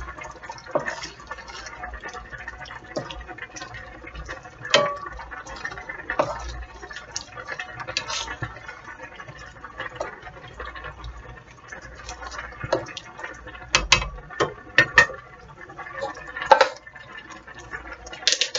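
Thick spaghetti meat sauce being stirred with a spoon in a stainless steel skillet: wet squelching and bubbling with spoon taps and scrapes against the pan. A few louder sharp clicks and knocks come toward the end.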